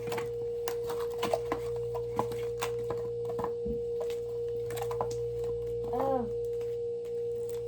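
A steady pitched hum throughout, with scattered small clicks and taps from hands working slime and plastic bowls; a brief 'oh' near the end.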